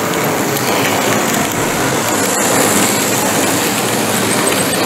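Steady, even hall noise of a model railway exhibition, with a model train running on its layout.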